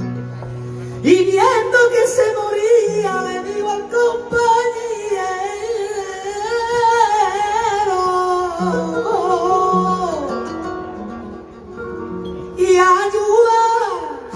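Male flamenco singer singing fandangos with long, ornamented, wavering held notes over flamenco guitar. The voice comes in about a second in, ends a phrase with a falling glide around ten seconds in, and takes a last phrase that falls away at the end.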